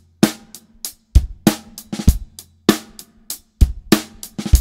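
Drum kit playing a steady rock beat: eighth-note hi-hat, bass drum and snare backbeat, with a three-stroke ruff (two quick soft grace strokes into a snare hit) on the snare near the end of the bar.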